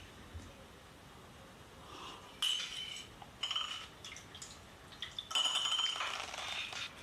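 A metal spoon clinking against a ceramic coffee mug in a few ringing taps. There is a short pair about two and a half seconds in, and a longer, louder run of clinks near the end.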